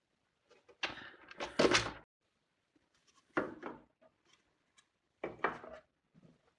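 Plastic cover of a stand mixer being handled and fitted back into place: knocks and scrapes in three bursts, the loudest about a second in.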